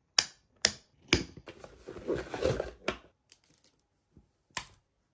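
Scissors snipping the plastic ties that hold a plush toy in its box: three sharp snips about half a second apart, then about two seconds of rustling as the packaging is handled, and a few lighter clicks with one more snip near the end.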